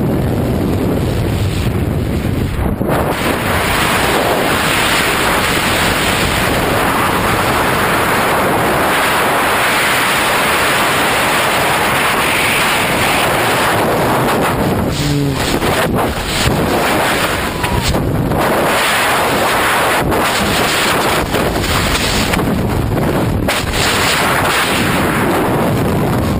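Loud, steady rush of wind buffeting the camera's microphone during skydiving freefall.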